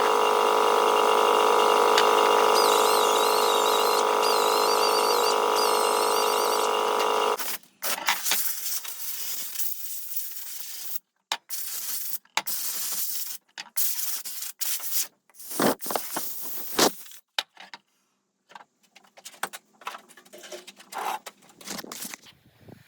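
A small electric power tool runs steadily for about seven seconds, then stops. After that come short, broken stretches of rubbing or scraping, separated by gaps of silence.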